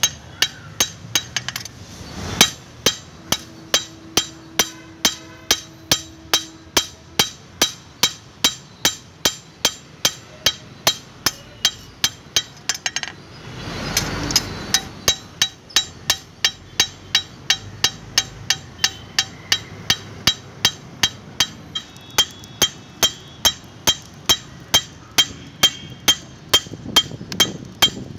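Hand hammer striking a steel meat cleaver blade on an anvil in a steady run of sharp metallic blows, about two and a half a second. The hammering breaks off briefly about halfway through, with a short rush of noise, then resumes at the same pace.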